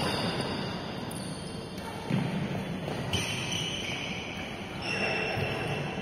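Badminton rally in a large indoor hall: racket strikes on the shuttlecock and players' footsteps on the court, echoing in the hall, with a sharp hit right at the start and another about two seconds in.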